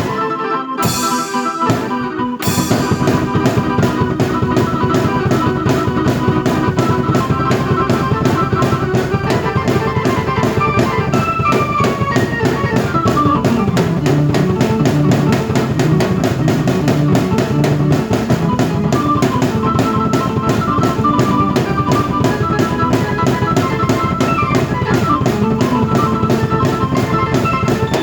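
Drum kit and keyboard played together: a couple of short stabbed hits with gaps, then a full, fast steady groove kicks in about two seconds in and runs on with melodic keyboard lines over the drums.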